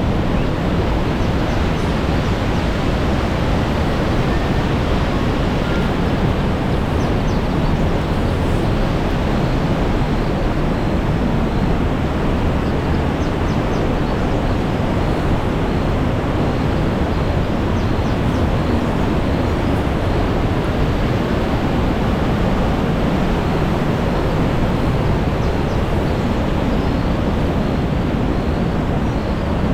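Kapruner Ache mountain stream rushing and cascading through a narrow rock gorge: a loud, steady rush of white water with no let-up.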